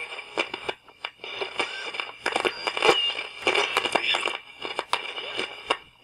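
Sony battery-powered AM radio being tuned through a weak band: crackling static with many short clicks and steady whistling tones as the dial moves.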